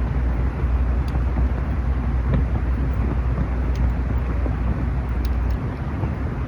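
Campfire burning: a steady low rush with scattered sharp crackles. The deep rumble under it eases slightly near the end.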